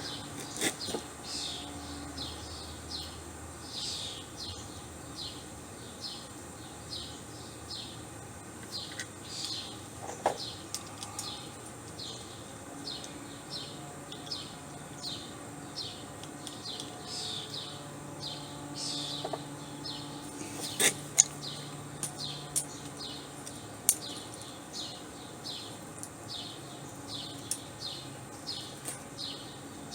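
A bird chirping over and over, short falling chirps about once or twice a second, over a faint low hum. A few sharp clicks or knocks cut in, the loudest about two-thirds of the way through.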